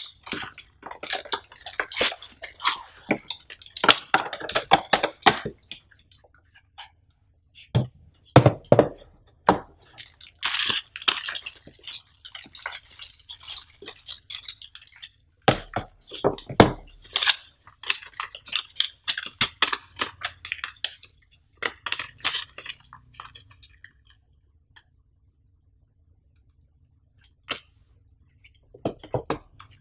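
Cardboard packaging and a plastic bag being handled: irregular rustling, crinkling and scraping, with a few heavier knocks as things are set down on the table. It goes mostly quiet for a few seconds near the end.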